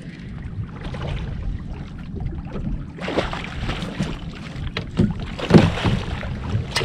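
Wind rumbling on the microphone, then from about three seconds in a hooked salmon splashing and thrashing at the surface beside the boat as it is netted, with a few sharp thumps.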